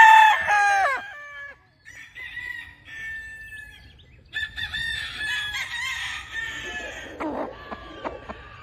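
Roosters crowing: a loud crow that trails off about a second in, followed by two fainter crows, the last one longer.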